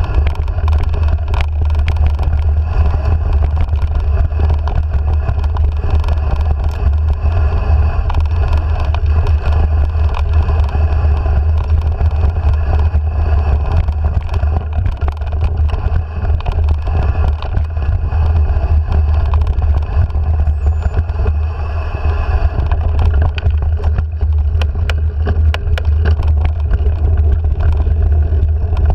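Steady low wind rumble on a handlebar-mounted camera's microphone while riding a dirt singletrack, with frequent small clicks and rattles from the bumps of the trail.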